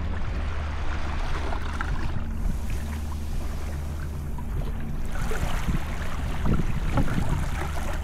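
Small waves lapping and washing over shallow sand at the shoreline, with wind and a steady low rumble underneath.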